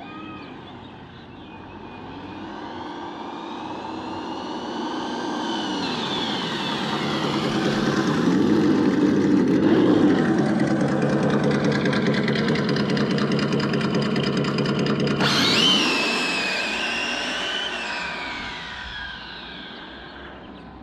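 Electric RC muscle car with an add-on engine sound unit making a run: a simulated engine growl under the high whine of its motor and gears. The sound grows louder as the car approaches, peaking around ten seconds in. A sharper whine cuts in about fifteen seconds in and falls in pitch, and the sound fades as the car moves away.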